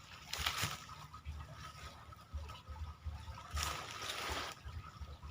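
Water splashing and trickling at the river's edge, in two short bursts: one about half a second in and a longer one around three and a half to four and a half seconds in.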